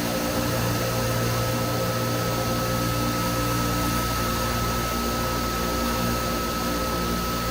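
Horizontal foam-cutting machine running: a steady mechanical hum with a high, even whine. Its low tones shift slightly about two seconds in and again around five seconds.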